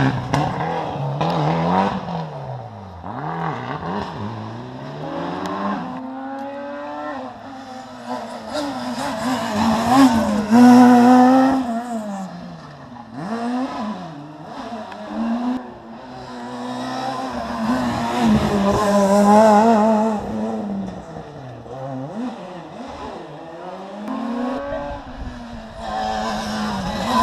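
Rally cars passing on a special stage, their engines revving hard and dropping back with each gear change and braking, the pitch rising and falling many times. The sound swells as cars come close, loudest around ten seconds in and again near nineteen seconds.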